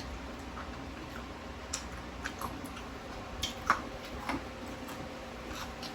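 Faint eating sounds: scattered soft clicks and smacks of chewing and of utensils at the table, over a low steady background hum.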